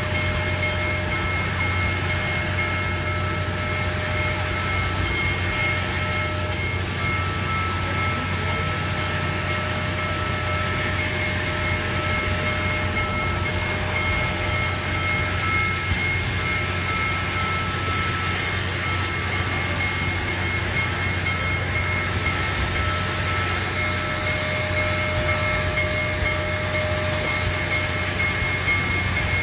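Train sounds: a steady rumble and hiss, with faint thin high tones that come and go.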